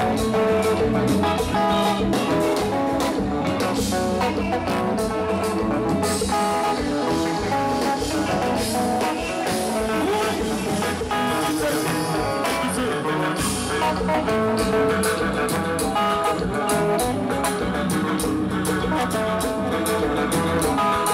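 Konpa band music: electric guitar picking over a steady drum-kit beat.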